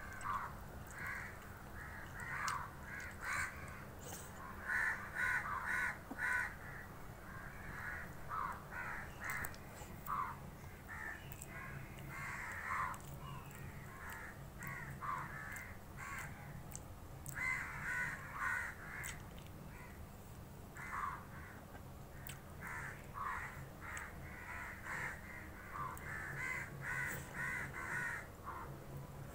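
Crows cawing again and again, many short calls coming in quick runs with brief gaps between them.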